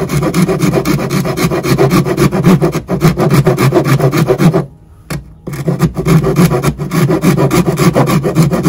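Bastard file rasping in quick back-and-forth strokes against the edge of an RV's battery compartment opening, filing away material to give clearance for the battery posts. The strokes stop for about a second a little past halfway, then start again.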